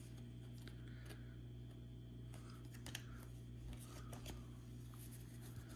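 2022 Topps Fire baseball cards being handled: faint slides and light ticks of card stock as cards are moved through the stack and set down, over a steady low hum.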